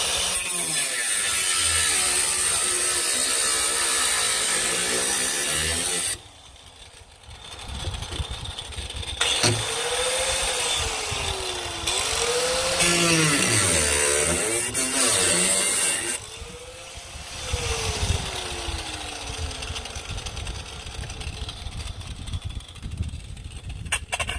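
Angle grinder cutting through a car's rusted sheet-steel rocker panel in two long runs, the second about 9 seconds in. During the second run the motor's pitch dips and recovers as the wheel bogs in the cut. After about 16 seconds the tool spins down with a falling whine, and a few clicks of metal being handled follow near the end.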